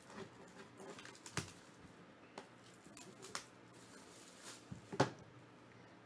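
Hands handling and unwrapping a cellophane-wrapped trading-card box: soft scattered rustles of plastic wrap and light taps of the cardboard box, the loudest tap about five seconds in.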